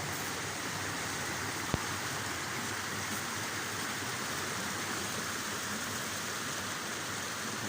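Artificial waterfall: falling water giving a steady, even rush, with one short knock about two seconds in.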